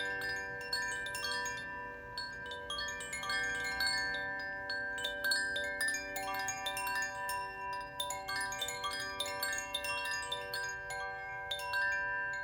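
Koshi chime being swung, its little clapper striking the tuned bars inside its wooden body in an irregular stream of ringing notes that overlap and sustain into one another.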